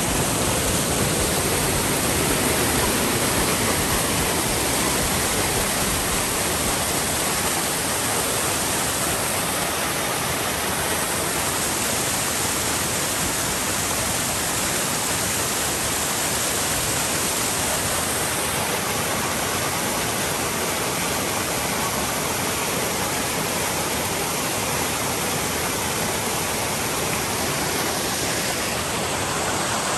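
Fast mountain creek rushing and splashing over rocks in small cascades, a steady, unbroken roar of white water.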